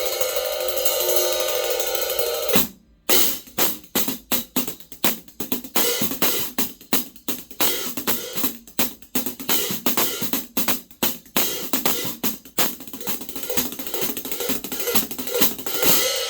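Zildjian K Sweet 14-inch hi-hats. A steady shimmering wash stops abruptly nearly three seconds in, then the hats are struck in a run of sharp strokes, a few a second, and the wash comes back near the end.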